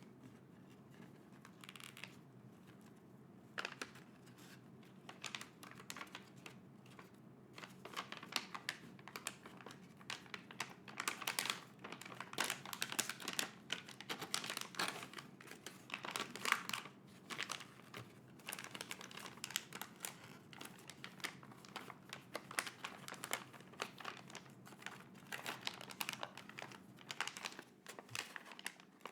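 Packaging crinkling and rustling as it is handled and opened, in irregular crackly bursts that grow busier towards the middle.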